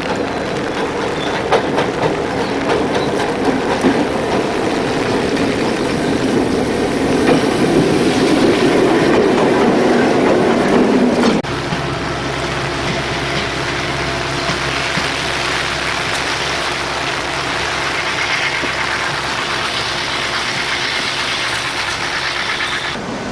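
Diesel locomotive and train on the move: a dense rumble of wheels on rail with scattered clicks, growing louder toward the middle. About halfway through, a cut brings a steady engine hum from the diesel running at constant speed.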